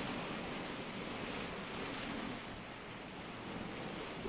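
Ocean surf: a steady rushing wash of waves that swells and eases slowly.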